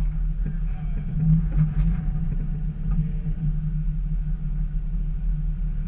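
Jeep Wrangler TJ engine idling steadily with a low, even rumble, heard close up from a camera mounted on the Jeep's hood.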